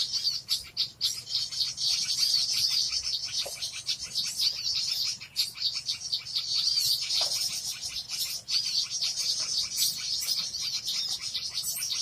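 Bird-lure recording of small songbirds calling: a dense, unbroken run of rapid, high-pitched chirps and twitters.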